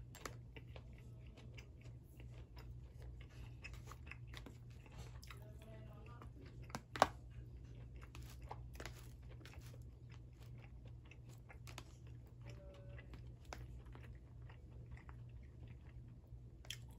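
Close-up eating sounds: a person chewing mouthfuls of beef and holy-basil stir-fry with rice, with small clicks and scrapes of a metal spoon and plastic fork in a plastic container. One sharp click stands out about seven seconds in, over a steady low hum.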